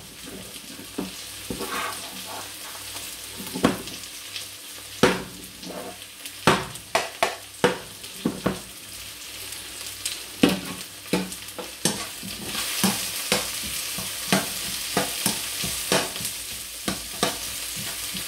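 Eggs and chopped onion sizzling in two hot pans, with a spatula repeatedly scraping and tapping against the pans as the setting omelette is cut back from the sides and turned and the onions are stirred. The sizzle grows louder about two-thirds of the way through.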